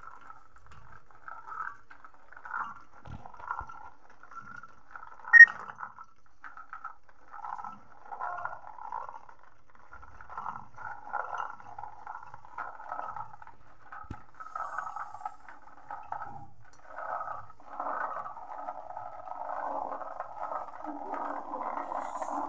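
Green peas poured in bursts from a plastic container into an aluminium pressure cooker, pattering against the pot. There is one sharp knock about five seconds in, and near the end the peas pour in a steady stream.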